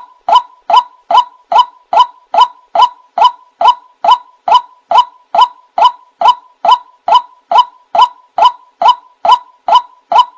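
Male white-breasted waterhen (burung wak-wak) calling: a loud, harsh note repeated steadily and evenly about two and a half times a second.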